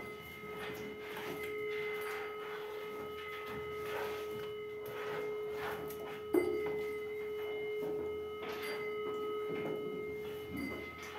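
Handheld metal detector giving a steady electronic tone while it is passed over a cow's belly to check for swallowed metal. The tone breaks off briefly near the end and a single knock comes about six seconds in.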